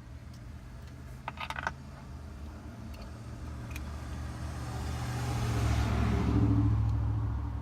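A motor vehicle passing by: its noise swells over a few seconds, peaks, and fades near the end, over a steady low hum. A few small clicks come about a second and a half in.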